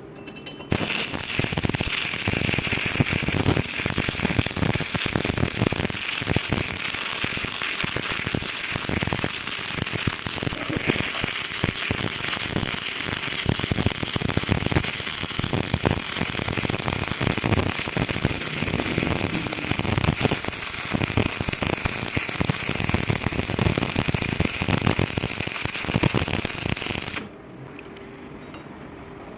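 Stick (arc) welding: the electrode arc crackles and sizzles steadily while a weld bead is run. It starts abruptly about a second in and cuts off sharply near the end when the arc is broken.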